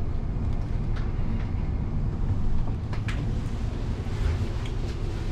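Incheon Airport maglev train heard from inside the car, a steady low rumble as it pulls into its terminal station just before the doors open, with a few faint clicks.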